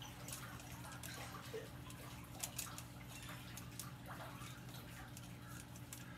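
Quiet background: a steady low hum with faint scattered ticks and taps, a cluster of them about two and a half seconds in.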